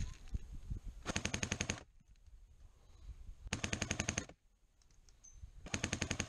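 Airsoft gun firing three short full-auto bursts, each a rapid string of clicks lasting under a second.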